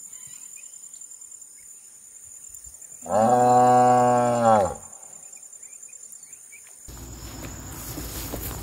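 A cow mooing once: one long, low moo lasting about a second and a half, starting a little after three seconds in, its pitch dropping as it ends.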